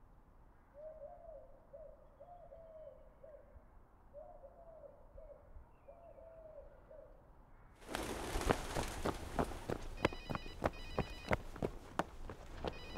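A bird calls softly in four short phrases of low hooting notes. About eight seconds in, a louder stretch of rustling and sharp knocks starts suddenly, and a phone rings in short trilling bursts about ten seconds in and again near the end.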